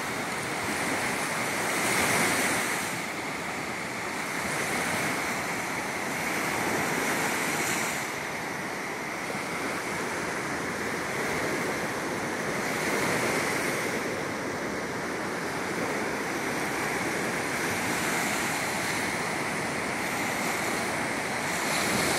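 Small lake waves breaking and washing up a sandy shore: a continuous rush of surf that swells every few seconds as each wave comes in.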